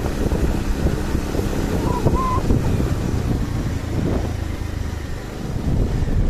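Motor scooters riding along a rough dirt track: a steady low engine drone with the rumble of tyres over the bumpy ground.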